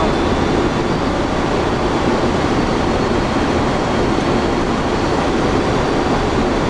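Steady rushing flight-deck noise of an Airbus A330 on final approach, airflow over the cockpit mixed with the hum of air conditioning and engines, unchanging throughout.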